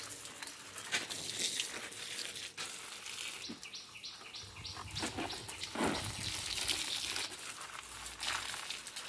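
Rustling and crinkling of a plastic sheet and plant leaves being handled, with a few soft knocks. About four seconds in, a short run of high chirps, like a small bird, can be heard faintly.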